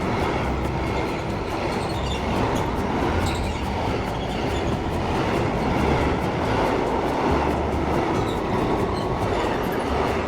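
Passenger train in motion, heard from inside the carriage: a steady, continuous running noise of wheels on the track.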